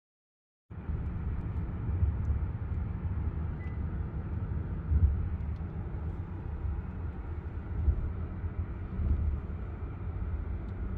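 Road noise inside a moving car at highway speed: a steady low rumble of tyres and engine with a hiss over it, swelling a few times. It starts about a second in and cuts off suddenly at the end.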